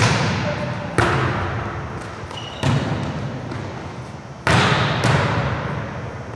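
A volleyball being hit during a serve-receive passing drill: five sharp smacks of hands and forearms on the ball, each followed by a long echo in the gym.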